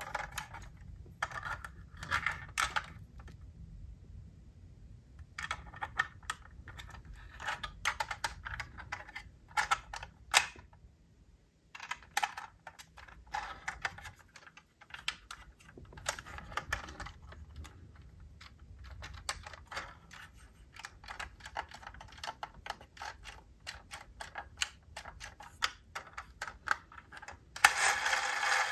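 Hands handling diecast model cars and their packaging: irregular small clicks and light clatter, with a louder burst of scraping noise about a second long near the end.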